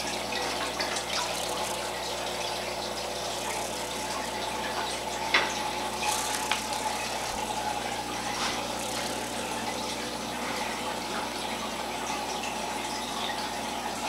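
Aquarium water circulating with rising air bubbles, a steady watery rush with a faint hum. A few short clicks come around the middle.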